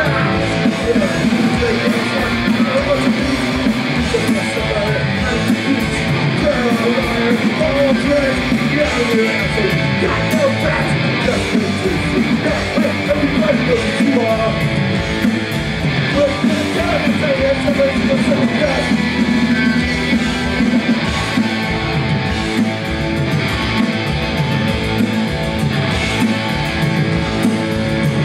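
Punk rock band playing live: distorted electric guitars, bass and drums, with a voice singing at times.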